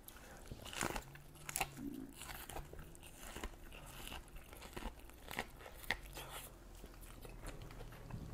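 A man biting kernels off an ear of corn on the cob from a steamed crab boil and chewing, a string of faint, irregular crunches and small clicks.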